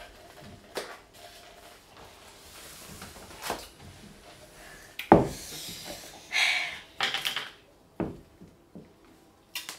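Food containers being handled on a table: scattered knocks and clunks, the loudest about five seconds in, as a small jar's lid is twisted open, followed by about a second of scraping rustle.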